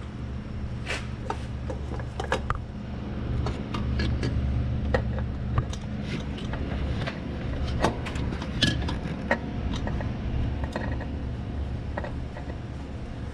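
Scattered light clicks, taps and scrapes of hands and parts as a new oil filter is worked into place, over a steady low hum.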